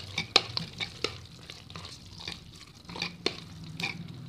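Metal ladle beating and stirring soft, mushy cooked rice inside a pressure cooker pot, an irregular series of scrapes and knocks against the pot. A faint steady low hum runs underneath.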